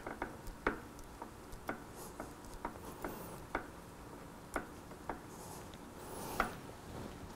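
Small, irregular metallic clicks and ticks as a brake-line banjo bolt with its washers is turned finger-tight into a motorcycle's front brake caliper, the line fittings shifting against each other.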